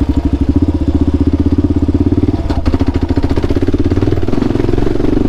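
Kawasaki KLR650's single-cylinder four-stroke engine running at low trail speed, its firing pulses heard as a rapid, even thumping. There is one sharp knock about two and a half seconds in.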